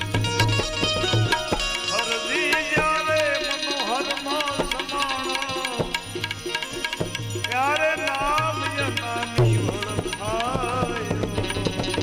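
Instrumental passage of Gujarati bhajan music: tabla keeps the rhythm under a melodic instrument playing ornamented phrases with slides and wavering notes.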